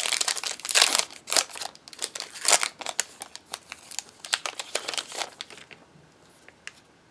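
Plastic wrapper of a Topps baseball card pack being torn open and crinkled in the hands: a dense run of crackles that dies away about five and a half seconds in.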